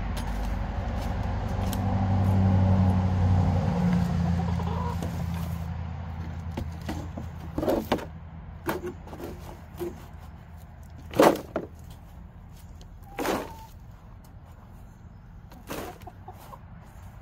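Chickens clucking in short, separate bursts while a coop is raked out. A low engine rumble swells and fades over the first six seconds and is the loudest sound.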